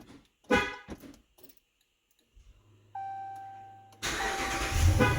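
A 2017 Ram 1500 pickup's horn gives a short chirp as lock is pressed on the key fob, then the truck's engine cranks and starts by remote start about four seconds in and keeps running.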